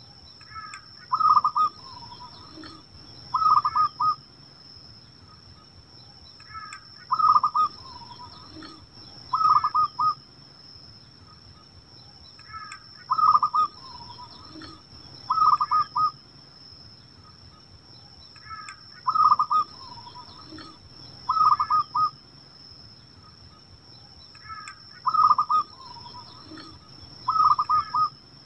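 Zebra dove cooing: the same short phrase about every six seconds, five times over, each made of soft lead-in notes and two loud, clipped coos about two seconds apart.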